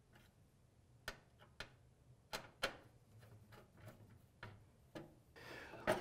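Faint, scattered clicks and light taps, about nine in all at uneven spacing, as a motherboard is fitted against the standoffs and metal frame of a PC case.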